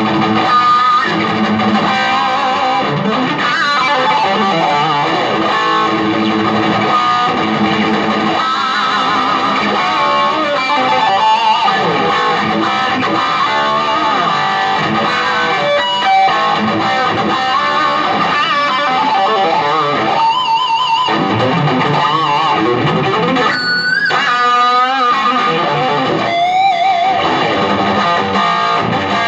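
Two Les Paul-style electric guitars played together through small Marshall amps, a continuous jam of chords and lead lines. In the last third the lead guitar shakes bent notes with wide vibrato.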